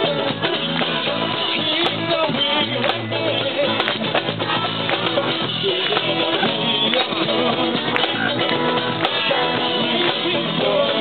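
Live band playing rock music, with a drum kit, guitars and singing.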